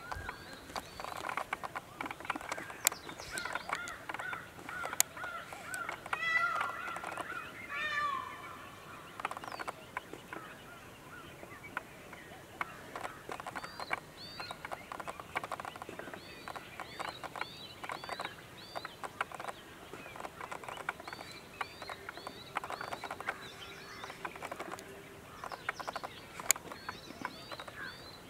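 Birds calling: quick runs of short, high chirps repeat throughout, and a louder call falls in pitch about six to eight seconds in. Scattered sharp clicks sound among them.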